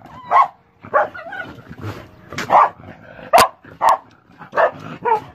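Dog barking in short, sharp barks, about seven in quick succession.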